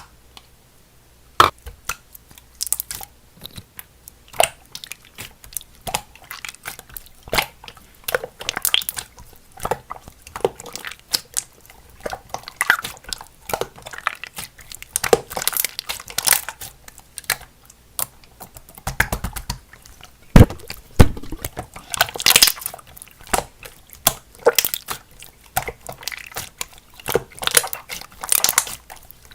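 Slime being squished and pressed by hand, making a dense, irregular run of crackling clicks and snaps.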